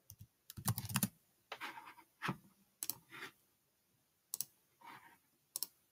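Scattered clicks and key taps on a computer, a few single clicks spread out. A denser run of louder knocks comes about half a second to a second in.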